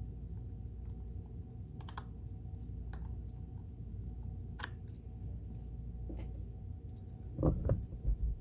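Scattered light clicks and taps of small sewing-machine parts being handled and fitted, with a cluster of louder knocks near the end, over a steady low hum.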